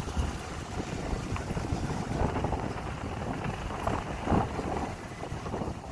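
Wind buffeting the microphone from a moving truck's open window, a steady low rumble with gusty flutter, over the noise of the truck driving along the street.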